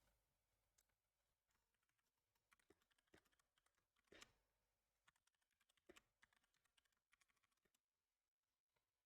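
Near silence with faint, scattered clicks and taps, the loudest about four seconds in.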